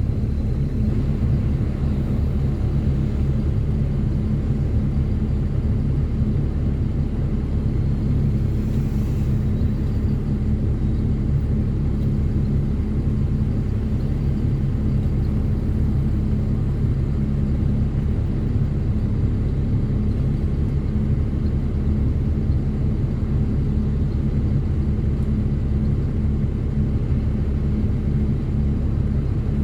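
Ford Cargo 2428 truck's diesel engine running steadily while driving, a low even drone that holds one pitch.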